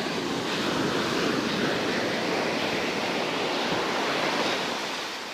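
Ocean surf: a wave breaking and washing up the sand, swelling about a second in and easing off near the end.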